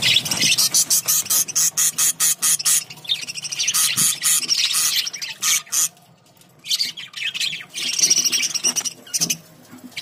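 Budgerigars chirping and chattering in fast runs of sharp, high chirps and warbles. The calls ease off briefly a little past the middle, then a second run follows.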